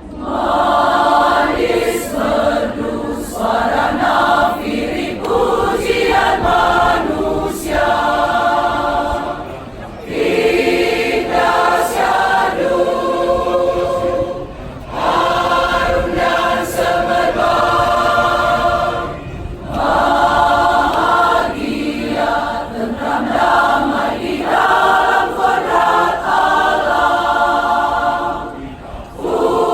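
Church choir singing a hymn arrangement in several voice parts, phrase after phrase, with brief dips between phrases.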